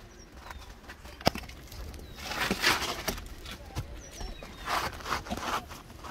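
Scraping and shuffling on an asphalt shingle roof as a roofer handles and sets shingles, in two rustling stretches, with one sharp tap about a second in.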